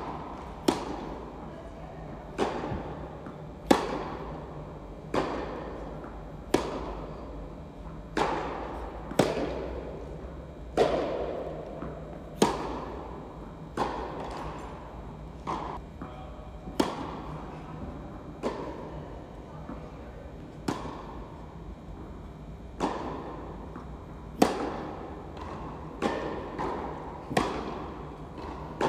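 Tennis balls being hit back and forth in a rally: a sharp racket-on-ball strike about every second and a half, with softer ball bounces between, each echoing in a large indoor tennis hall.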